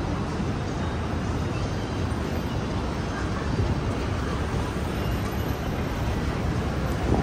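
City street ambience: a steady low rumble of traffic, with faint indistinct voices mixed in.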